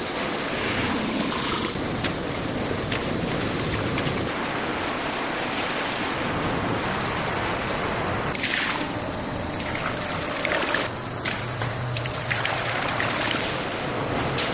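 Steady rushing, splashing noise of flowing liquid, like milk pouring or running.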